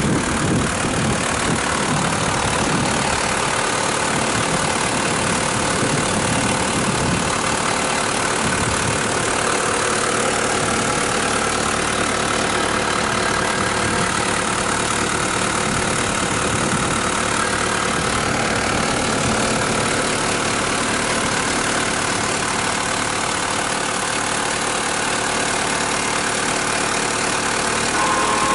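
1998 Mitsubishi Pajero Long engine idling steadily, with a faint steady whine over it. This is the abnormal engine-bay noise, which the owner suspects comes from the air-conditioning compressor's internal vanes and main-shaft bearing.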